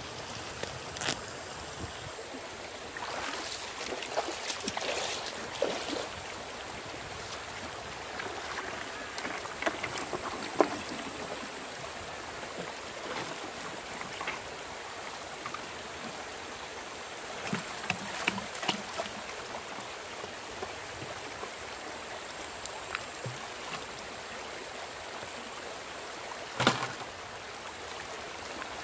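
Shallow stream water running steadily while a plastic gold pan is worked underwater. Material is tipped into the pan from a bucket, then the pan is shaken and swirled, with scattered splashes, the loudest near the end.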